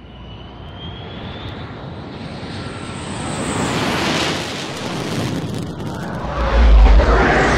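An aircraft engine roar growing steadily louder, with a heavy low rumble coming in about six seconds in.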